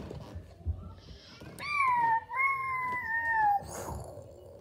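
Two long, howl-like whining calls, one straight after the other, each sliding slowly down in pitch; the second is the longer. A soft thump comes shortly before them.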